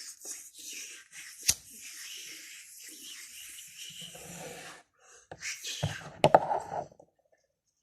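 Breathy, hissing mouth sounds with a sharp click about a second and a half in. Then a second, fuller burst of breath noise with a loud click, which stops suddenly about seven seconds in.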